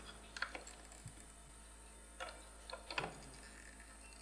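A few faint, scattered clicks and light taps from hand-soldering a small circuit board on a wooden desk: the board, soldering iron tip and solder wire knocking lightly as the joint is made.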